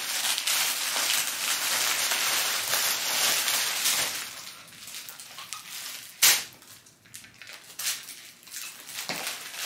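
Plastic polybag packages crinkling and rustling as an armful of them is gathered up and handled. The crinkling is loud and continuous for about the first four seconds, then quieter, with one sharp crackle about six seconds in.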